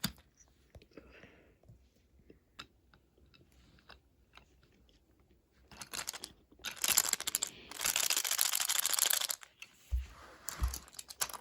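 Packaging of a Munipals R160 subway-car toy being handled and opened: faint clicks at first, then a few seconds of loud crinkling and rustling past the middle, and two low thumps near the end.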